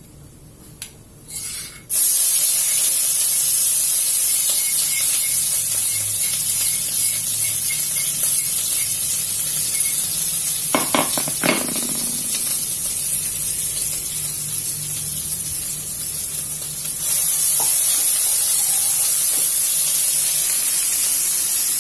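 Ground spice paste (bumbu halus) dropped into hot oil in a wok, starting to sizzle loudly and suddenly about two seconds in and frying with a steady hiss as it is sautéed. A few knocks come about halfway through, as it is stirred.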